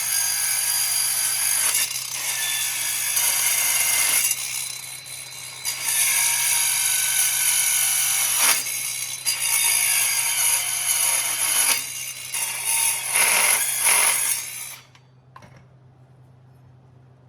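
Power tool cutting through metal in several long passes of high-pitched whine and grinding, with short dips between passes; the cutting stops near the end.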